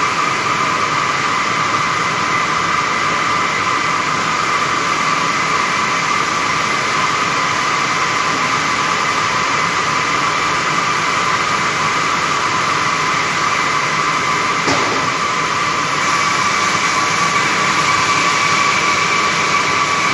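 Circular looms weaving polypropylene sack fabric: a loud, steady machine din with a high whine. There is a single sharp click near the end, and the din grows a little louder just after.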